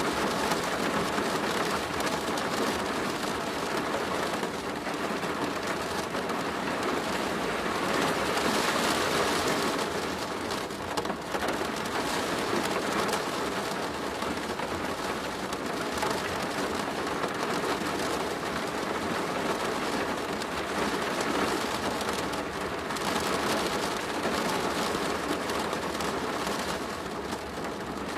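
Steady rain drumming on a plastic roof, a dense patter of drops without a break.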